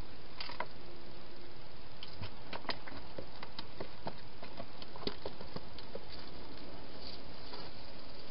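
Wild hedgehog feeding at the bowls inside a plastic feeding station: irregular small crunches and clicks, thickest in the middle, over a steady hiss.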